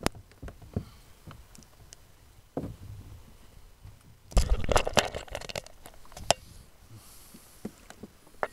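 Scattered knocks and clicks of handling on a plastic kayak, with a loud burst of dense clattering and thumping for about a second midway.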